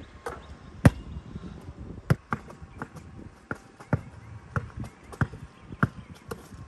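Basketball bouncing on a hard court: a loud bang about a second in, then a steady run of dribbles, roughly one or two sharp bounces a second.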